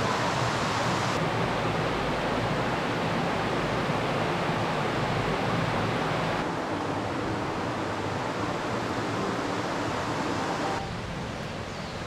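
Shallow stream rushing over rocky rapids, a steady rush of water. It drops in level and loses its hiss near the end.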